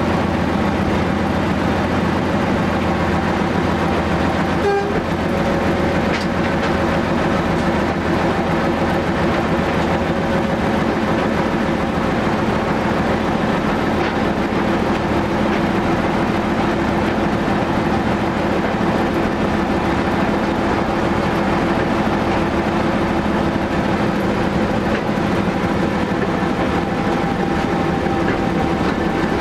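Walker railmotor's diesel engine running steadily as the railcar rolls along the track, heard from inside the cab.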